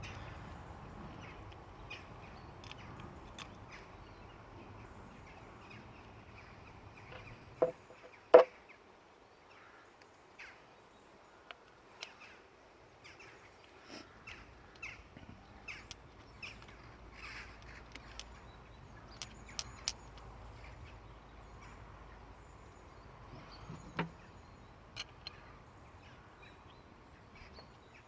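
Scattered clicks and light metal knocks of hand tools working a fuel line fitting off a diesel fuel pump, with two louder knocks about eight seconds in and another near the end. Crows caw in the background.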